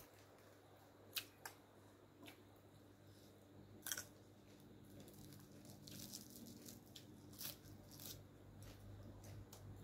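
Faint close-up eating sounds: quiet chewing of instant-noodle salad and red sausage, with scattered soft mouth clicks and smacks, the sharpest about four seconds in, over a faint steady hum.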